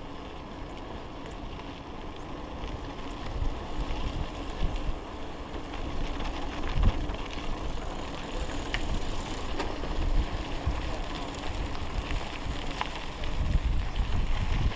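Mountain bike riding over a gravel and packed-dirt path: steady tyre rumble with scattered small rattles and clicks, and wind buffeting the microphone that grows stronger near the end.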